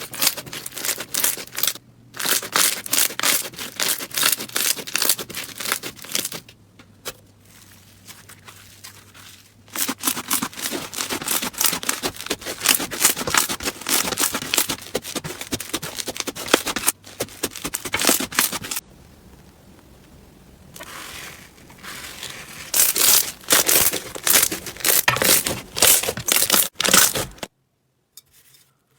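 Slime being squeezed and worked by hand, giving dense runs of small crackles and pops in several stretches with quieter pauses between. It cuts off abruptly near the end.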